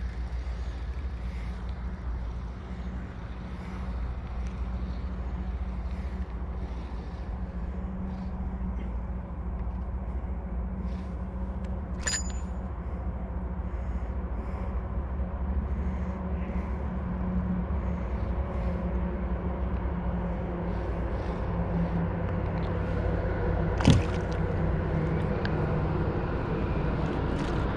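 A steady low motor-like hum with drifting pitch, growing slightly louder toward the end. A sharp click comes about halfway through and a louder knock near the end.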